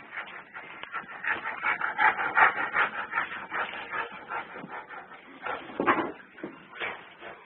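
Animals calling in many short, overlapping high calls, busiest about two to three seconds in, with a louder single call near six seconds.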